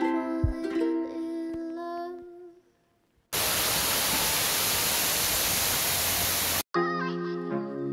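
Water falling in a fine spray down an artificial rock wall: a steady rushing hiss that cuts in and cuts off abruptly after about three seconds. Plucked-string background music fades out before it and comes back after it.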